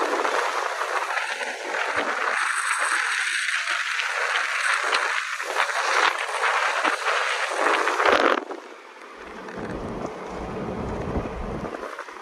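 Wind and road noise in a moving car: a crackly hiss that cuts off suddenly about eight seconds in, leaving a quieter low rumble.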